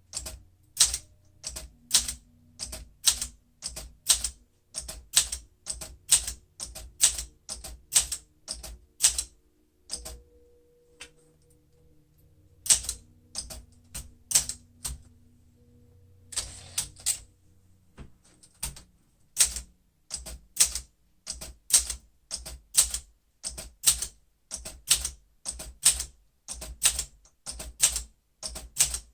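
Olympia SM9 manual portable typewriter being typed on, its typebars striking the platen at about two keystrokes a second. The typing pauses for a couple of seconds about a third of the way in, and there is a quicker run of strikes a little past halfway.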